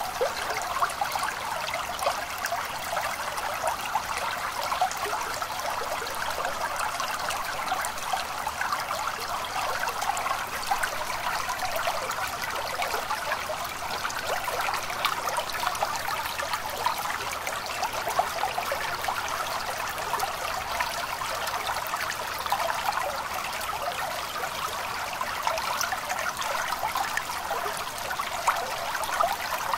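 A stream of running water trickling and babbling steadily, with no change.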